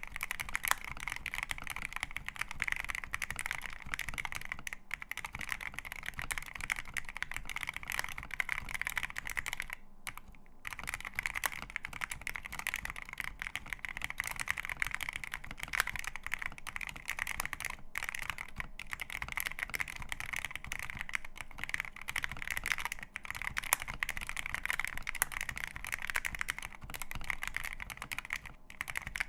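Fast, continuous typing on a Feker IK75 Pro mechanical keyboard with lubed Akko CS Jelly Black linear switches, a polycarbonate plate, a plastic case and PBT keycaps: a dense run of keystrokes, with a brief pause about ten seconds in and another shorter one near eighteen seconds.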